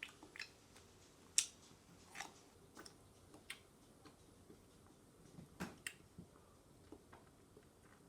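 Scattered small clicks and taps, a few seconds apart and irregular, the sharpest about a second and a half in.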